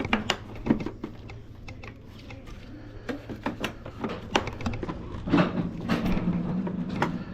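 Scattered clicks and knocks of hard parts being handled and fitted back onto a Go Chair power wheelchair. A steady low hum joins about five seconds in.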